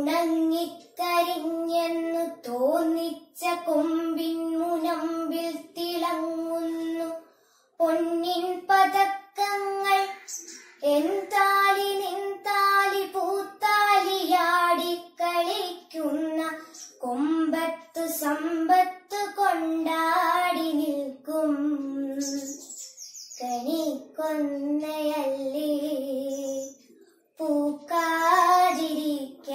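A girl sings a Malayalam poem solo and unaccompanied, in the melodic chanted style of Kerala poetry recitation (kavithalapanam), in long held phrases broken by short pauses for breath.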